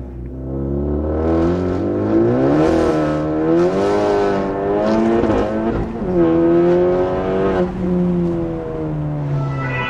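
Honda Civic Type R FK2's turbocharged 2.0-litre four-cylinder engine accelerating hard through an Armytrix full exhaust system. The note climbs in pitch through second gear toward the shift lights, breaks briefly for the upshift into third about halfway through, then pulls on.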